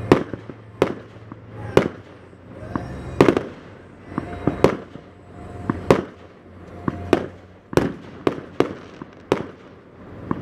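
Aerial fireworks shells bursting overhead: an irregular series of sharp bangs, more than a dozen in ten seconds, some with a short echoing tail.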